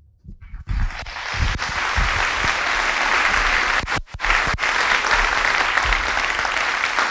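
Audience applauding steadily, the clapping building up about a second in.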